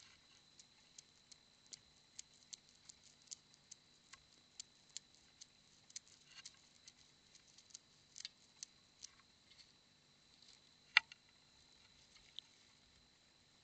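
Faint, irregular crackling and clicking of dry leaves and twigs as a short-beaked echidna shuffles through leaf litter beside a bird bath. There is one sharper tap about eleven seconds in, under a faint steady high tone.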